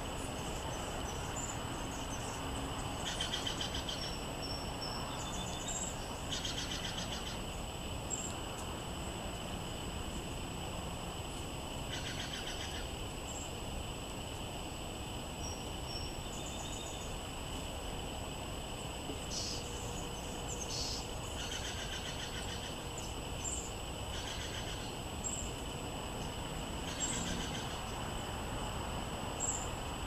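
Small songbirds calling in short chirpy trills, about eight bursts spread through, with a few thin high notes between, over a steady background noise.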